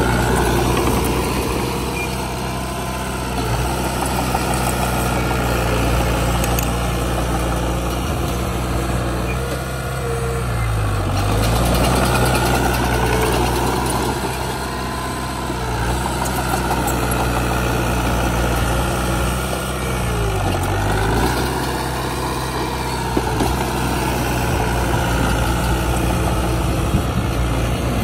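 Heavy diesel engine of earthmoving machinery running steadily, its pitch dipping briefly twice, about ten seconds apart, before picking up again.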